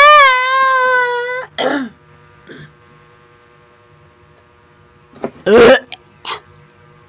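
A young man's exaggerated vocal noises right into the microphone: a long, wavering yell that cuts off about a second and a half in, then short gagging, retching noises, the loudest a falling one about five and a half seconds in.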